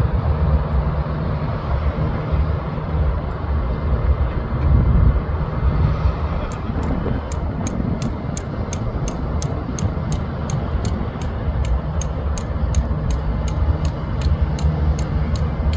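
Tram running along, a steady low engine rumble with road noise. From about a third of the way in, a fast high ticking comes in at roughly three ticks a second and keeps going.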